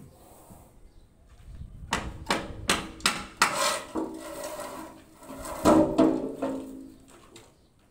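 Hammer striking the steel box formwork of a freshly cast concrete pillar to knock the sheets loose. About eight sharp metallic blows come over some four seconds, several ringing on briefly, and the loudest fall near the end.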